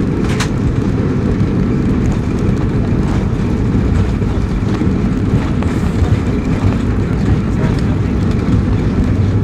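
Steady, loud low rumble of a McDonnell Douglas MD-82's rear-mounted Pratt & Whitney JT8D turbofans during the takeoff.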